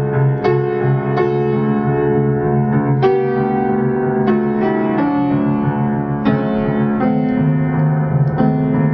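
Background piano music: single notes struck every half second to a second and left to ring, over a held low bass note.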